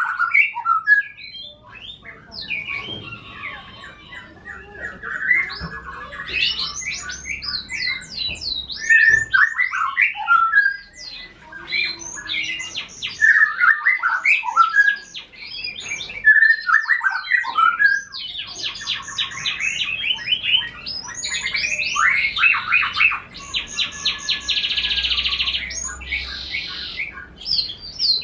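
Caged canary singing almost without a break: varied whistled phrases with several fast rolling trills, the longest near the end. The canary is serving as the master bird for training a white-rumped shama.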